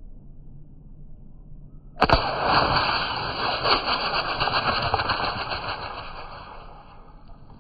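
A pump air gun fires a pellet into an aerosol spray paint can with a sharp crack about two seconds in. The punctured can then vents its pressurized contents in a loud, steady hiss that fades over the last couple of seconds.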